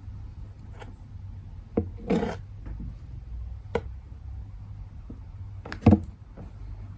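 Cardboard box bumped and scraped from inside by a cat moving about: a knock, a short scraping rustle about two seconds in, another knock, and a louder double knock near the end, over a steady low room hum.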